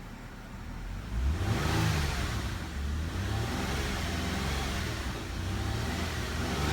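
2008 Nissan Maxima's 3.5-litre VQ V6 idling, then revved up about a second in and held at raised revs, revving up smooth.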